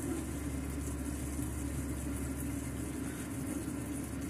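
A steady low machine hum, unchanging throughout.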